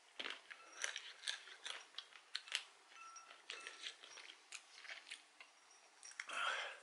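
A person chewing a mouthful of roasted peanuts, with a run of small irregular crunches. Near the end there is a short, louder rush of breath.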